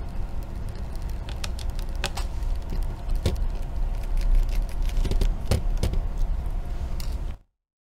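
A small screwdriver and a hand working the screws on a laptop's LCD panel: scattered light clicks and taps over a steady low rumble. The sound cuts off to dead silence near the end.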